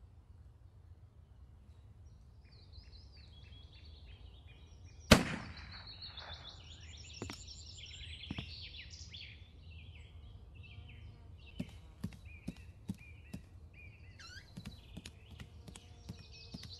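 Small birds chirping over a steady low hum, broken about five seconds in by one loud, sharp bang that rings on briefly. Later comes a quick run of light sharp taps.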